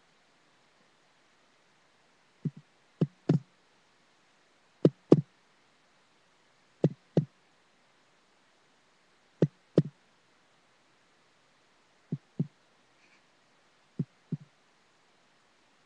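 Short low thumps, mostly in close pairs like a slow heartbeat, repeating irregularly about every two seconds.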